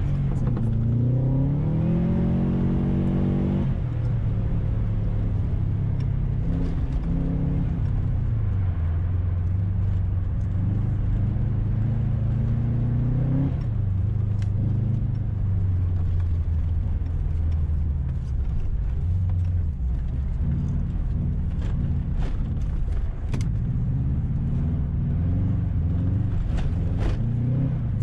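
Race car engine heard from inside the cabin, revving up and easing off through the corners of an ice track: the pitch climbs over the first few seconds, then drops sharply at a gear change, and rises and falls again later. A few sharp knocks and clatters come in the last several seconds.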